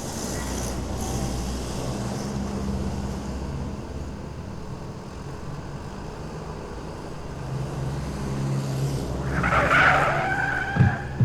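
Staged car-crash sound effect: a car engine running and growing louder, then tyres screeching hard about nine seconds in, ending in sharp crash impacts near the end.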